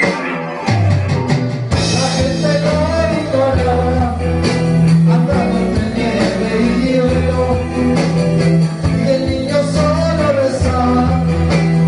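Live rock band playing an 80s-style song: electronic drum kit keeping a steady beat under electric guitars and a strong bass line, with a man singing over it.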